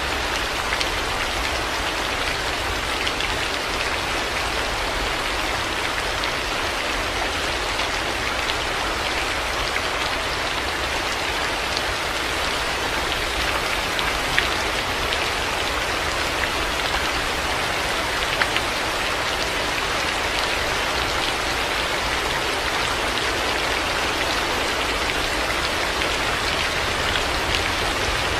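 Heavy rain falling steadily, a dense even hiss of drops hitting surfaces, with a couple of sharper single drop hits about halfway through.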